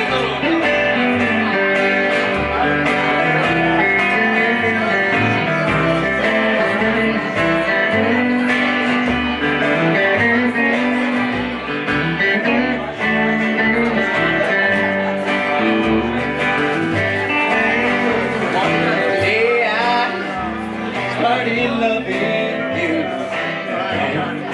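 Live country band playing, with guitar leading.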